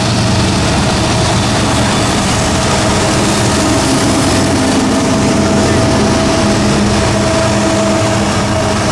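Diesel-electric freight locomotives (EMD SD70ACe and GE AC4400CW) passing close by, their engines running loud and steady, with a steady whine over the engine noise.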